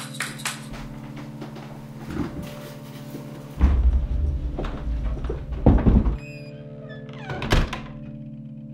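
A wheeled bag rumbles and knocks across the floor for a couple of seconds, then a door shuts with a thunk, over steady background music.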